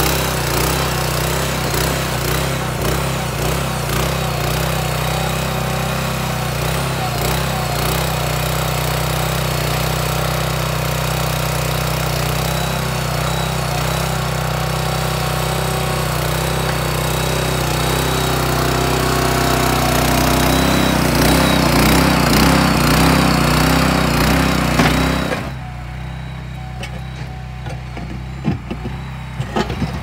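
Small engine of a portable mini backhoe running steadily while the hydraulics dig. It grows louder and rougher for a few seconds about two-thirds of the way through, then drops abruptly to a quieter level, with a few knocks near the end.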